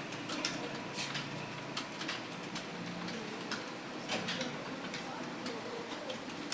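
Computer keyboard keys clicking in an irregular stream, a few strokes a second, as someone touch-types steadily at about 52 words a minute.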